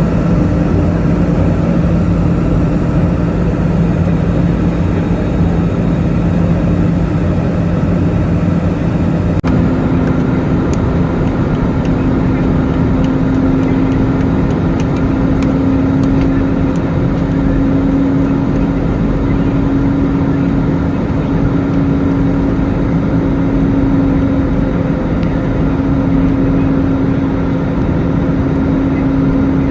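Aircraft in flight: a loud, steady rushing drone with a constant engine hum, whose pitch shifts abruptly about a third of the way through. A few faint ticks or rattles sound over it later on.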